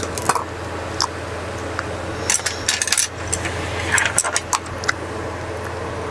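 Chopsticks and utensils clicking and clinking against a stainless steel pot and a plastic container while noodles are eaten, in scattered clusters of sharp clinks over a steady low hum.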